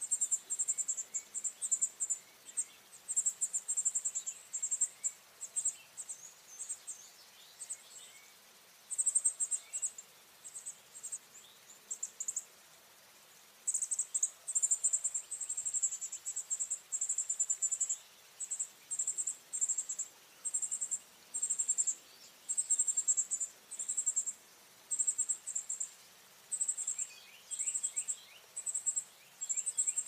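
Insects trilling at a high pitch in short, irregular bursts, over and over. Near the end comes a quick series of faint bird chips.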